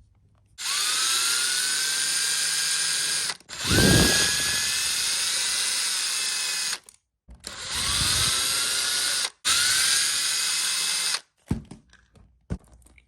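Cordless drill/driver running in four bursts of a few seconds each, backing screws out of an RC truck's chassis. Each burst starts with a rising whine as the motor spins up and then holds steady.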